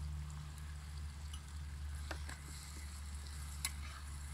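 Diced raw meat going into a pot of tomato stew simmering over a wood campfire, with a steady sizzle. There are a few sharp clicks of a spoon against the plate or pot about two seconds in and again a little later.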